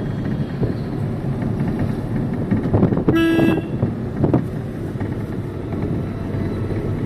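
A vehicle horn gives one short toot, about half a second long, a little after three seconds in. Under it runs a steady low rumble of vehicles on the road.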